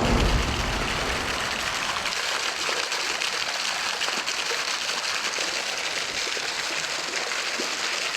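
Steady hiss of rain and flowing river water, with a brief low rumble in the first half second.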